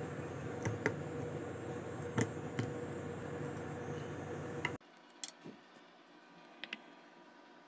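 Steady background hum with a few sharp clicks, cutting off abruptly about five seconds in to much quieter room tone with occasional faint clicks.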